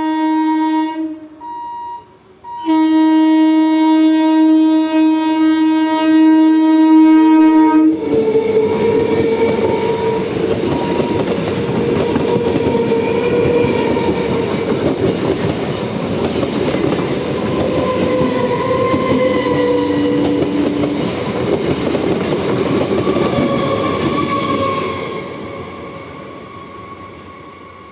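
Train's air horn sounding loud, long blasts with a short break just after a second in, cutting off about eight seconds in as the train runs past at speed. The passing train then makes a loud steady rush and rumble of wheels on rail, fading over the last three seconds.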